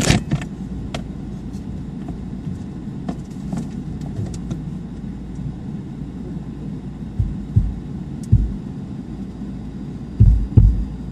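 Car going through a car wash, heard muffled from inside the closed glove box: a steady low rumble with scattered faint knocks, a few dull thumps about seven to eight seconds in, and a cluster of heavier thumps near the end.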